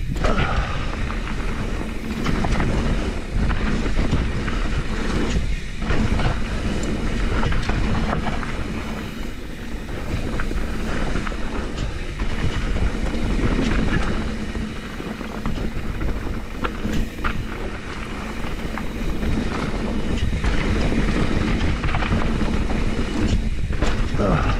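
Trek Slash full-suspension mountain bike ridden fast along a dirt trail: continuous tyre noise on the dirt with the chain and bike clattering over bumps, and wind rumble on the helmet camera's microphone.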